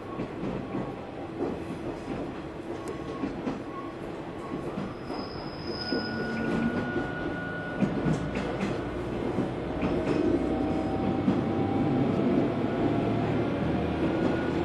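Running sound inside a KiHa 120 diesel railcar: a low steady engine and rail noise with scattered clicks and a few brief steady tones. It grows louder about six seconds in and again around ten seconds.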